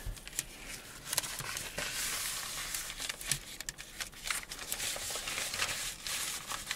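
Sheets of newspaper rustling as they are unfolded, spread and smoothed flat by hand over a small table, with many small crackles of the paper.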